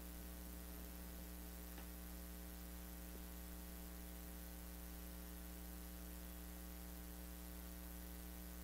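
Steady electrical mains hum with a faint hiss, with no other sound over it.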